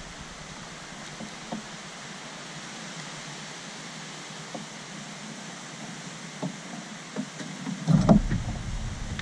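Quiet outdoor background hiss with a few faint ticks from handling fishing tackle; about eight seconds in, wind starts buffeting the microphone in gusts.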